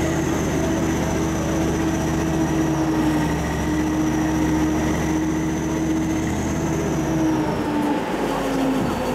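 Type 10 main battle tank driving slowly past, its V8 diesel engine and running gear giving a steady rumble with a high whine over it. The whine and engine note drop in pitch near the end.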